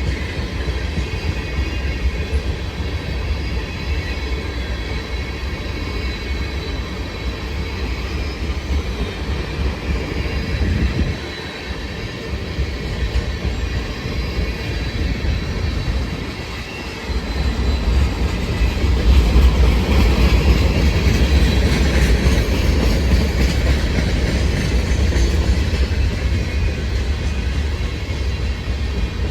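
Freight train cars rolling past on the rails: a steady rumble of wheels on track. The rumble drops off briefly twice, about 11 and 16 seconds in, then comes back louder.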